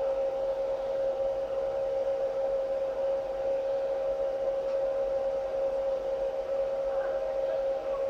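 A steady hum: one held tone with a fainter tone above it, over a light hiss.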